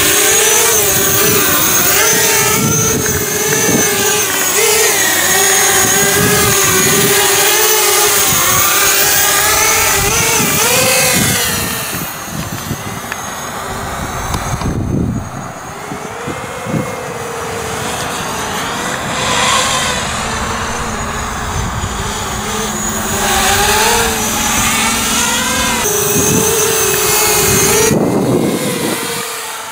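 Tarot TL250H FPV racing quadcopter with DYS 2206 2000KV brushless motors flying on a 3S battery: a buzzing propeller whine whose pitch rises and falls with the throttle. It is loudest for the first dozen seconds, then quieter as the quad flies farther off, still surging with each punch of throttle.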